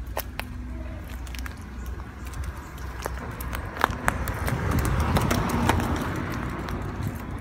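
Footsteps on a pavement strewn with fallen nuts and seed pods, which crunch and pop underfoot in a run of sharp cracks. A rushing noise swells in the second half and eases near the end.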